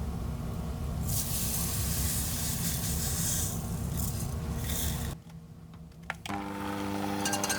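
Electric mixer running with its beaters churning in a bowl. It stops abruptly about five seconds in, there is a click, and then it starts again with a steady motor hum.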